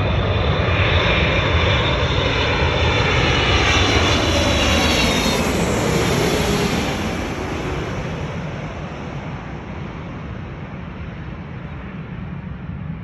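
Boeing 777-300ER jet, with its two GE90 turbofans, passing close by on its approach to land: a loud engine roar whose whine falls in pitch as it goes past, then fades away from about seven seconds in.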